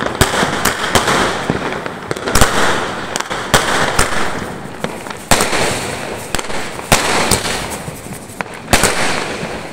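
Fireworks going off: a continuous hissing crackle broken by sharp bangs of aerial bursts, roughly one every second, the loudest about two and a half seconds in.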